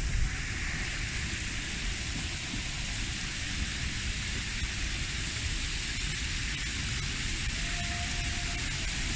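Steady rushing hiss of water streaming down the sides of a tiled cone fountain, with an uneven low rumble underneath.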